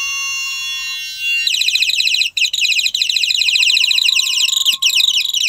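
High-pitched electronic tone, alarm-like. It starts as a steady high whine and, about a second and a half in, turns into a loud, very fast pulsing trill.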